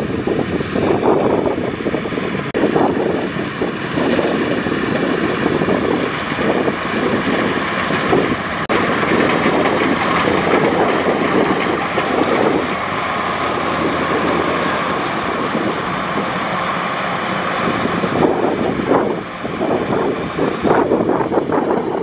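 Kubota DC105X combine harvester running steadily under load as it cuts and threshes rice: the diesel engine and the machine's threshing gear give a dense, continuous mechanical noise, dipping briefly near the end.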